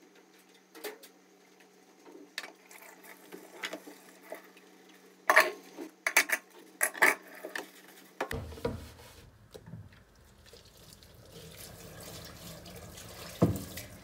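Kitchen clatter of dishes and pans knocking together, loudest about halfway through, followed by water running steadily from a tap into the sink, with one more knock near the end.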